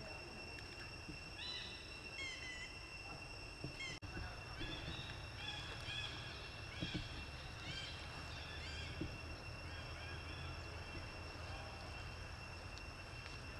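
A dozen or so short, high chirping calls, roughly one every half second, that stop about nine seconds in, over a steady high-pitched whine.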